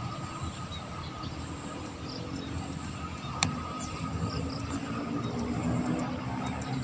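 Outdoor background: a steady low hum like a distant engine, with a short high-pitched chirp repeating about once a second. One sharp click comes about halfway through.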